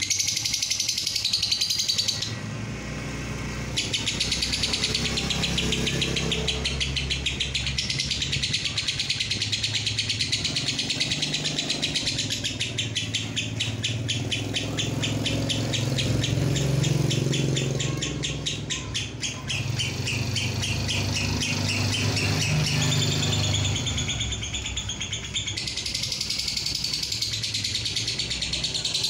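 Fischer's lovebird giving its long 'ngekek' chatter: a fast, unbroken run of sharp, high notes repeated many times a second, pausing briefly about two seconds in. A low rumble runs underneath.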